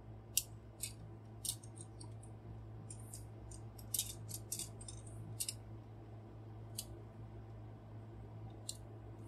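Light, irregular clicks and clacks of a large transforming robot figure's panels and joints being handled and moved by hand, with a small cluster of quick clicks about four seconds in.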